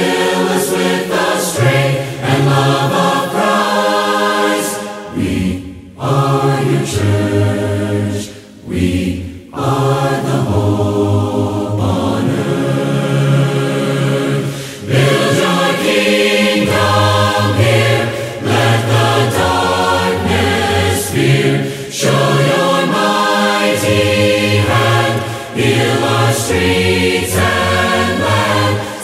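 A group of voices singing a worship song in harmony, with low bass parts under the melody and short breaths between phrases.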